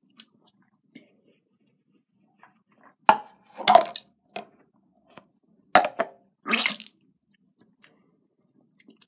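Someone eating with the mouth close to the microphone: loud crunching and chewing in two clusters, about three seconds in and again about six seconds in.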